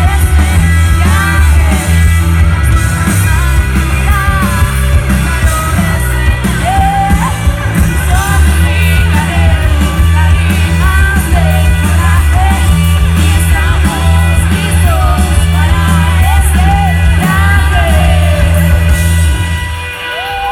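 Indie rock band playing live, a singer's voice over loud bass and drums. Near the end the band stops, leaving one held note ringing.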